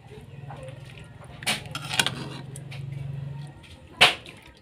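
A ladle clinking against a cooking pot and bowl as soup is scooped and poured, with a few sharp clinks about a second and a half, two and four seconds in. A low steady hum runs underneath and stops about three and a half seconds in.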